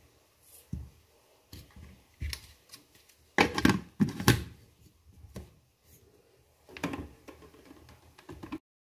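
Plastic blender jug and lid being handled: the lid is pressed and clicked onto the jug, with scattered knocks and rattles of plastic on plastic. The loudest clatter comes about three and a half to four and a half seconds in, and another near seven seconds.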